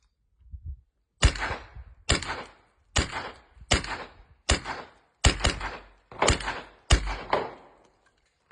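Suppressed gunshots from a CZ Scorpion 3+ Micro 9mm carbine with an Omega 9K suppressor: about ten single shots, roughly one a second with a quick double near the middle, each a sharp crack followed by a short echo.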